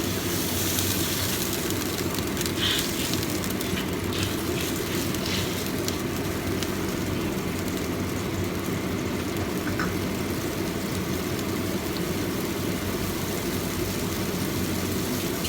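Steady low rumble of stove-side kitchen noise while a pot of braising liquid cooks, with a few light clicks of utensils or cookware a few seconds in and again around the middle.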